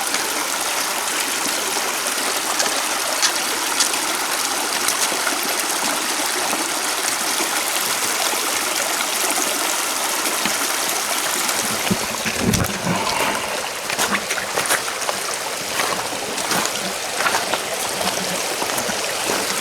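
Creek water rushing steadily. From a little past the middle there are scattered short splashes and knocks over the flow.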